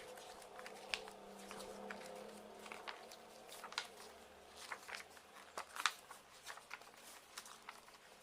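Paper and card handling: an album's pages and inserts being leafed through and shifted, giving scattered crisp clicks and rustles.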